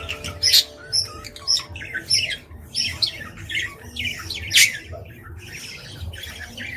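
Budgies calling: a string of short, sharp, high squawks and chirps, one after another about every half second, the loudest about half a second in and again past the middle.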